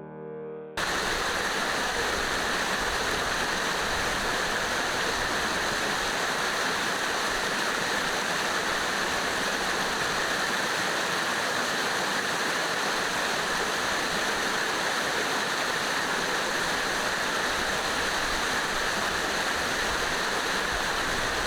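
Steady rush of a waterfall. A music track cuts off just under a second in.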